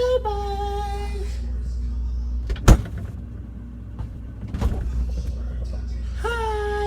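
A refrigerator door shuts with one sharp knock about two and a half seconds in, over a steady low hum. A long, high drawn-out call sounds at the start and another near the end.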